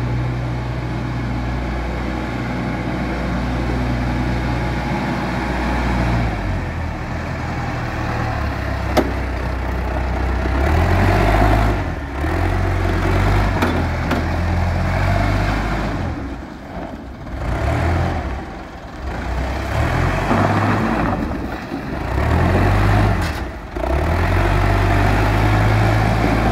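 Diesel engine of a 5-tonne forklift running as the machine drives and manoeuvres, steady at first, then rising and falling repeatedly with several short dips in the second half.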